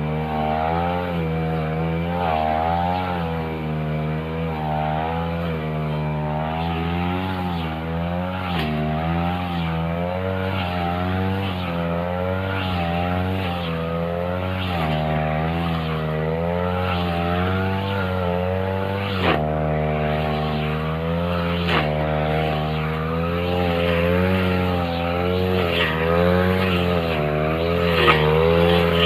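Backpack two-stroke brush cutter running under load as it cuts grass, its engine pitch rising and falling every second or two as it is throttled up and down. A few sharp clicks, the clearest about two-thirds through.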